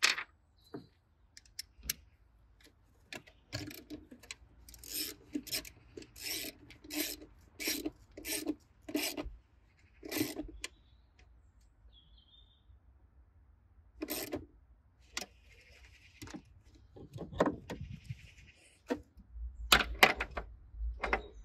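Hand socket wrench tightening a 10 mm nut on a car battery's positive terminal: a run of about a dozen short ratcheting strokes, roughly two a second. Near the end come a few heavier knocks and metal clatter.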